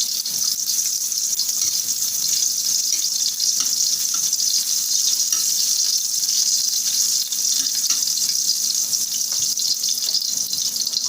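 Sliced ginger sizzling in hot oil as it sautés in a pan: a steady, even hiss with faint crackles, over a low steady hum.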